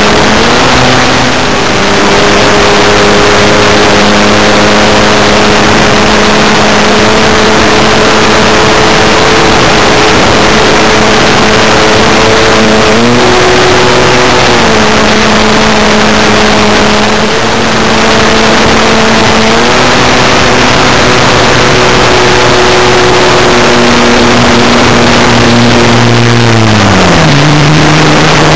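Electric motor and propeller of a Multiplex Acromaster RC aerobatic plane, heard from a camera mounted on the plane: a steady droning whine whose pitch steps up and down several times with the throttle and falls near the end. A loud rushing hiss of airflow over the microphone runs under it.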